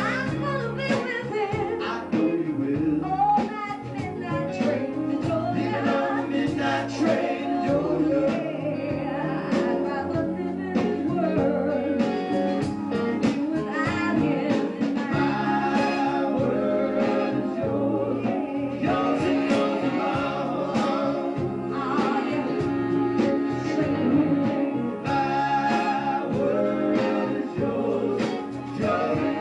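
Live soul and R&B band playing a song with singing over guitar, bass, drums, keyboards and horns.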